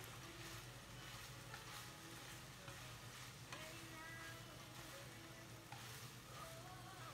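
Chicken pieces frying in a pan, sizzling faintly while they are stirred.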